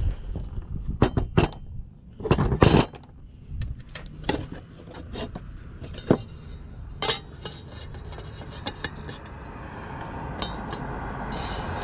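Metal clinks and knocks as a condenser fan motor's metal mounting plate is handled and set onto the motor on a plastic work table, several sharp clicks with the loudest about two and a half seconds in. A vehicle's noise rises near the end.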